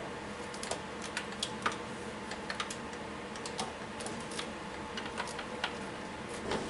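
Scattered light clicks and taps, irregularly spaced and about fifteen in all, over a steady background hum.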